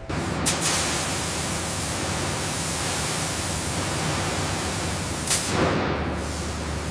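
A steady hiss with a low hum underneath, with a sharp click about half a second in and another about five seconds in.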